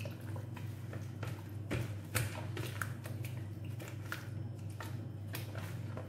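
Raw chicken pieces being squished and turned by a plastic-gloved hand in a yogurt marinade in a plastic bowl: irregular wet squelches and small clicks. A steady low hum runs underneath.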